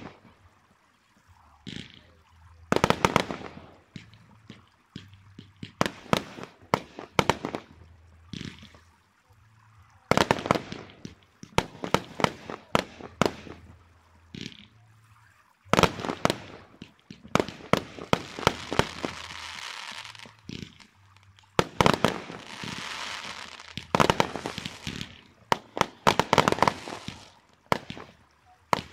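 Aerial fireworks bursting: quick clusters of sharp bangs one after another, with a few seconds of steady hissing in the second half.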